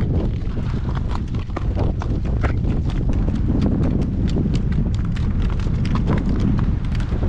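Horse's hooves clip-clopping at a walk on a paved road, several sharp strikes a second. Wind rumbles heavily on the microphone underneath.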